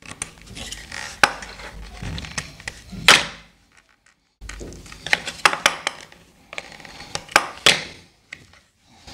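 Pocket knife cutting into the PVC insulation of a copper wire, then set down on a plywood board with a knock about three seconds in. Afterwards, scattered clicks as the cut insulation is pulled off the wire by hand.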